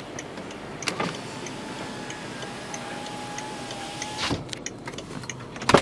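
Range Rover power window motor running with a faint steady whine for about two seconds, ending in a thump as the glass reaches its stop. The hazard-light flasher ticks steadily throughout, with a click about a second in and another near the end.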